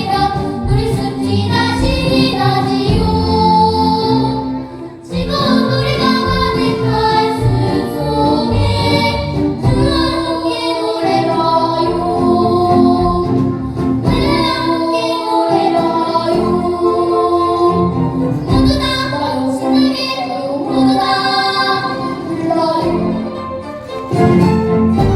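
A children's vocal ensemble singing a Korean children's song in harmony with instrumental accompaniment, with a brief dip in loudness about five seconds in.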